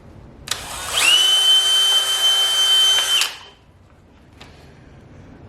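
Handheld electric power tool starting up, its motor rising quickly to a steady high whine, running for about two and a half seconds, then stopping.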